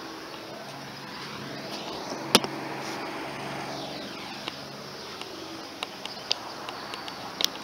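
A steady low hum with scattered light clicks and taps, and one sharp loud click about two seconds in. A rush swells and fades between about two and five seconds in.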